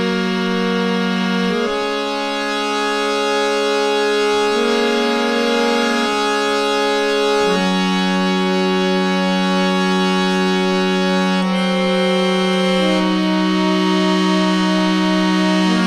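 Background music: slow, sustained organ-like chords that change every couple of seconds.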